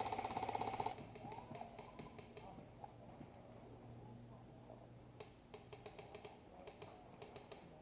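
Airsoft gun fired in one rapid full-auto burst of sharp clicks lasting about a second, then scattered fainter clicks of airsoft fire further off.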